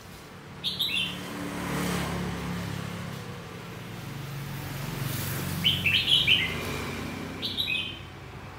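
Red-whiskered bulbul singing three short phrases of quick, falling whistled notes: about a second in, again around five and a half seconds in, and once more near the end. A vehicle engine runs in the background, swelling and fading through the middle.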